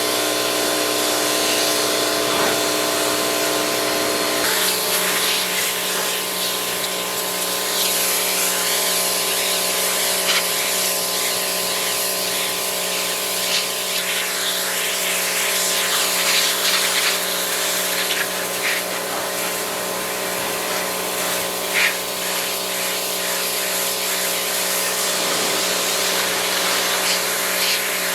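Gas pressure washer running steadily, its engine note under the hiss of the water spray; the engine's tone shifts about four seconds in.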